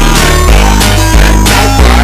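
Loud electronic dance music with heavy bass notes that change about every half second, under a steady beat.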